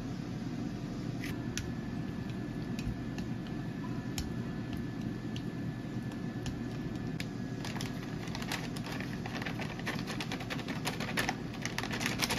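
Wooden chopsticks clicking and scraping against a ceramic dish as an egg is stirred into diced ham, in sparse taps. About halfway through, a dense run of crackling and rustling follows as shredded cheese is shaken out of a plastic bag. A steady low background hum runs underneath.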